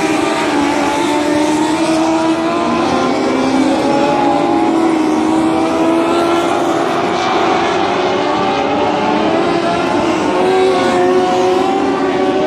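A pack of dwarf race cars at speed, their small motorcycle-derived engines running hard together. Several engine notes overlap and waver in pitch.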